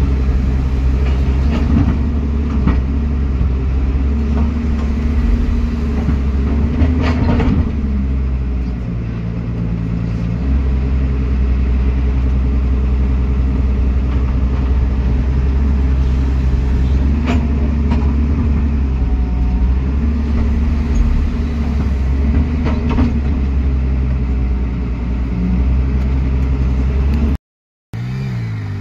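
JCB JS205 LC tracked excavator's diesel engine running under load, heard from inside the cab as it digs and swings soil into a tipper truck. The engine note dips for about two seconds a third of the way through and then picks up again, with occasional clatters of the bucket and dumped soil. It cuts off suddenly near the end.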